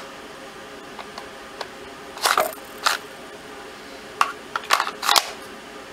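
A T4E HDR paintball revolver and its hard retention holster being handled: a few light clicks, then louder clicking and clatter about two seconds in and again in the last two seconds.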